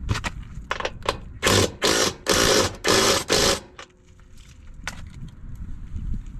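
Hand ratchet wrench clicking in four quick strokes as a nut is tightened on a travel trailer's body-to-frame bolt, after a few lighter clicks and knocks of the tool being fitted; the nuts on these bolts had worked loose.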